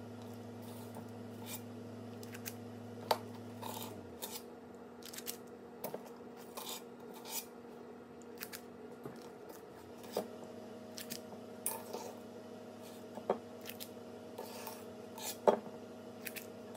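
Spring-loaded cookie scoop worked again and again, its squeeze lever and release blade giving a string of short, irregularly spaced clicks and scrapes as portions of soft dough are released onto parchment.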